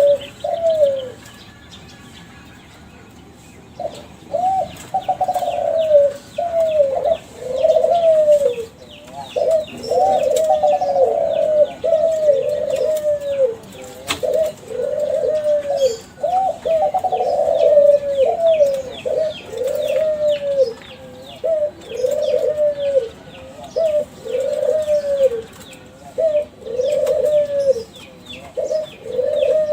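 Kelantan-strain spotted doves (derkuku) cooing in a long run of quick, repeated arched coo notes, which start again about four seconds in after a short pause. Faint high chirps of small birds are heard behind them.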